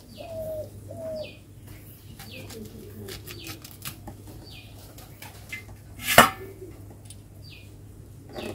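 A pigeon cooing a few times near the start and a small bird chirping about once a second, over faint clicks of moringa leaves being cut on a bonti blade. One sharp, louder clack comes about six seconds in.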